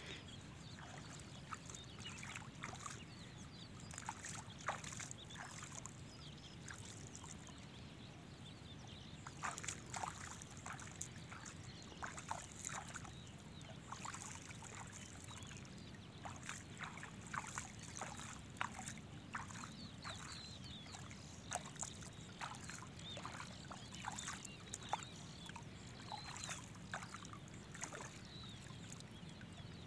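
Wading through shallow water: faint, irregular sloshing and splashing from legs moving through the water, with a few faint bird chirps.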